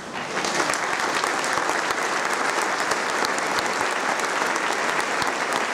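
Audience applause, breaking out just as the choir's last chord ends and holding steady.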